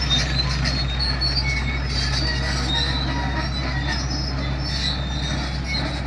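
Heavy Caterpillar earthmoving machine at work: a steady low diesel engine hum, with many short, high metallic squeals throughout.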